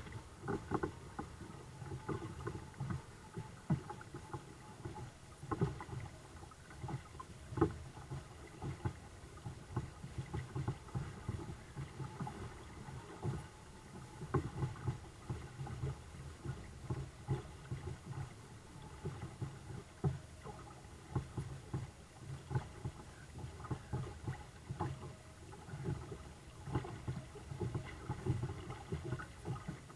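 Small waves slapping and lapping against the hulls of a two-kayak sailing catamaran under way, an uneven run of quick splashes and knocks several times a second.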